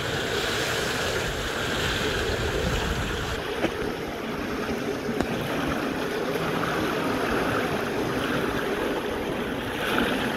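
A steady rush of pool water lapping and flowing at the edge of an infinity pool, mixed with wind on the microphone. There are two brief knocks in the middle.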